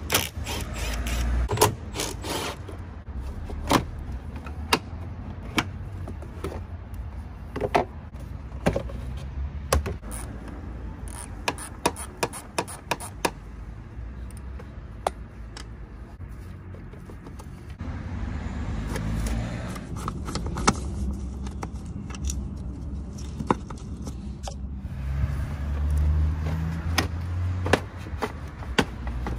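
A BMW 335d's plastic engine-fan shroud being worked loose and pulled out by hand, giving many scattered clicks and knocks of plastic and tools. A low rumble swells twice in the second half.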